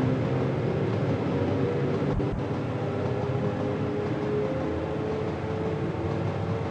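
A moving train running steadily: an even rumble with a layered mechanical hum, and a couple of short low thuds about two seconds in.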